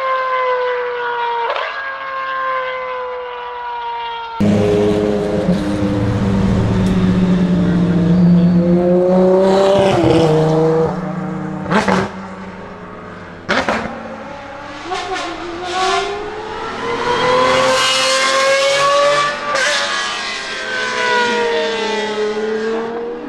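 Pagani Huayra R's V12 race engine at high revs, its note falling away over the first few seconds. Then, after a cut, race-car engines run at low speed with repeated rises and falls in revs and a few sharp cracks.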